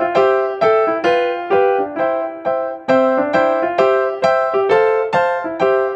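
Background music: a light keyboard tune of repeating struck piano-like notes, about three a second, each dying away.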